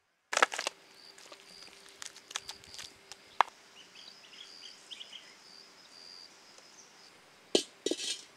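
A few sharp knocks and clicks, the loudest just after the start, scattered smaller clicks through the middle and two more knocks near the end, over faint repeated high bird chirps.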